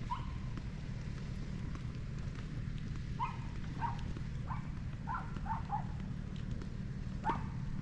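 Dogs barking, about eight short barks spread through, some in quick succession, over a steady low rumble.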